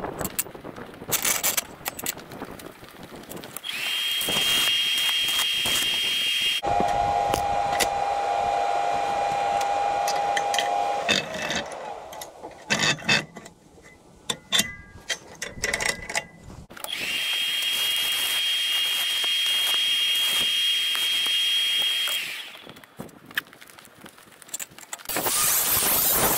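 Handheld angle grinder grinding steel in several runs, each a steady high whine, one of them lower in pitch. In the middle, for several seconds, an irregular crackle of sharp clicks is heard, typical of a stick-welding arc.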